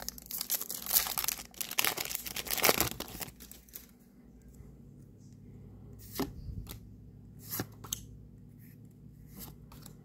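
Foil trading-card booster pack being torn open and crinkled, a dense crackling rustle lasting about three and a half seconds, then a few scattered light clicks and taps.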